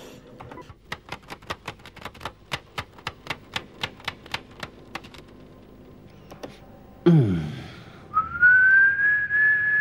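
A quick run of about twenty sharp clicks, roughly five a second. Then, about seven seconds in, a short sliding sound drops in pitch, followed by a long, high whistled note that holds steady.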